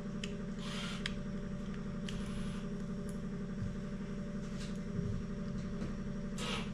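A few short rustles and faint clicks of wires and a spade connector being handled and pushed onto a capacitor terminal, over a steady low hum.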